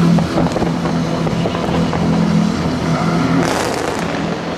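Fireworks display firing: a dense, continuous crackle and popping from shells and fan-shaped comet volleys, with a sudden loud hiss as a fan of comets launches about three and a half seconds in.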